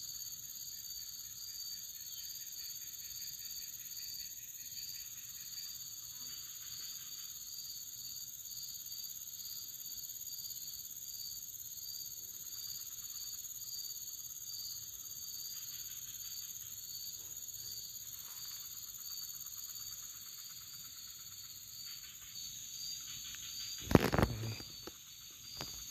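Insects shrilling steadily in several high, continuous tones, one of them pulsing. A single loud knock comes near the end.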